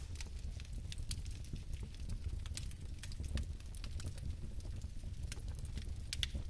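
Fire burning: a steady low rumble of flames with irregular sharp crackles and pops scattered throughout.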